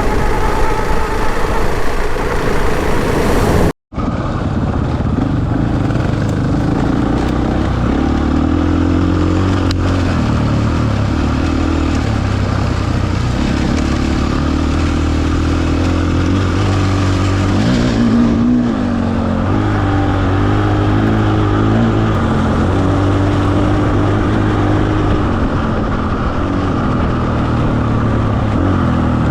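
Adventure motorcycle engine running while riding, its note shifting up and down with the throttle over wind and road noise. The sound cuts out for an instant about four seconds in.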